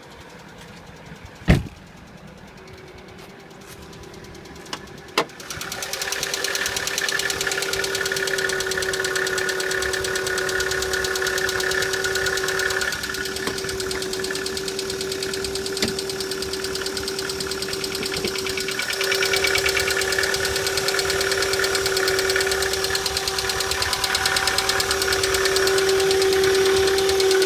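A few sharp clicks, then a Chevrolet Cruze engine starting from cold about five seconds in and running steadily with a persistent tone over a fast, even pulsing. The owner describes this as an extraneous, very unpleasant noise that appears on cold starts even in light frost and disappears once the engine warms.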